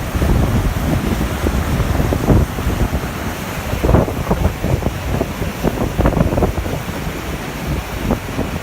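Strong typhoon wind gusting and buffeting the microphone over the rushing and splashing of storm-surge seawater.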